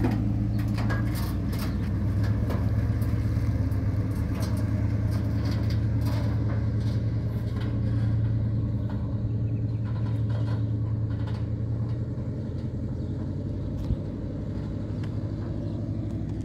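Motor vehicle engine running with a steady low rumble, easing slightly in level near the end, with a few light clicks in the first seconds.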